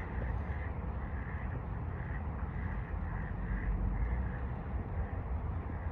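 Steady low rumble of background noise, with faint short higher sounds repeating about twice a second.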